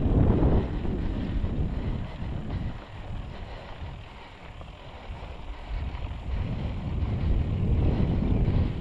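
Wind rushing over the microphone of a rider's onboard camera during a mountain bike race. It dies down a few seconds in and builds again toward the end.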